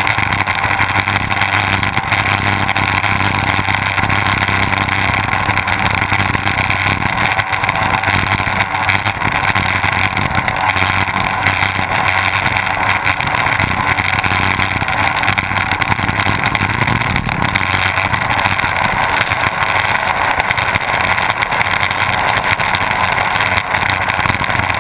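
Twin Mercury OptiMax two-stroke outboard motors running at racing speed on an offshore powerboat, heard close up from the deck. A loud, steady drone that holds one pitch throughout.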